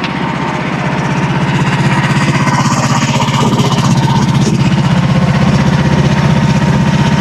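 Small gasoline engine of a portable bandsaw sawmill running steadily with an even, rapid firing beat, not under cutting load.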